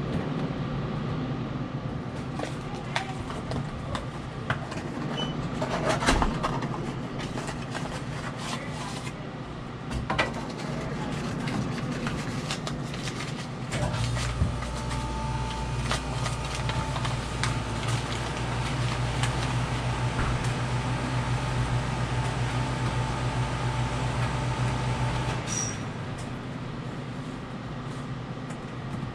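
Scattered clicks and knocks of parts being handled while a Follett ice machine's auger drive and seal are taken apart by hand, over a steady machine hum. A louder, lower hum comes in about halfway and cuts off near the end.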